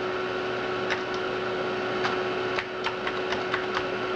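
An Amiga 4000's hard drive and power supply running with a steady whine and hum, under a few sharp keyboard key clicks: one about a second in, then a quick irregular run in the second half as a command is typed.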